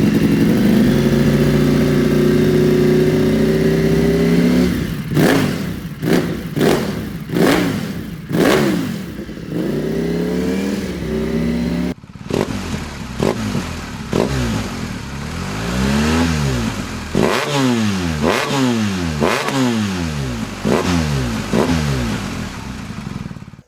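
Two motorcycle engines in turn, a V4 and a BMW boxer twin, each revved hard. The first is held at high revs, then blipped up and down in quick sharp revs about once a second. After a sudden cut about halfway through, the second is blipped up and down about once a second.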